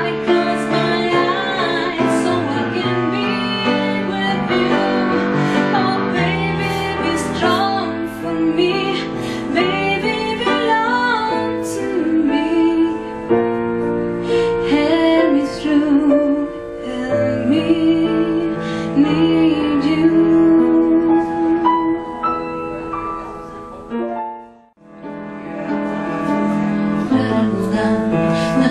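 A woman singing with vibrato to grand piano accompaniment. About three-quarters of the way through, the music cuts out for a moment, then singing and piano start again.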